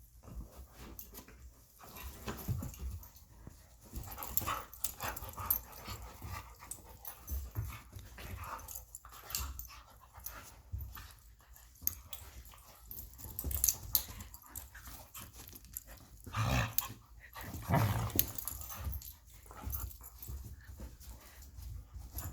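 Two puppies play-fighting: irregular scuffling with small dog vocal sounds, and a few louder moments in the second half.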